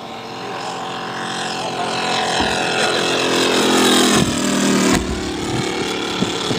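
Moki 150 cc five-cylinder radial engine of a large radio-controlled TBM Avenger model in a flypast. It grows louder as the plane approaches, drops in pitch as it passes about four seconds in, and then fades as the plane banks away.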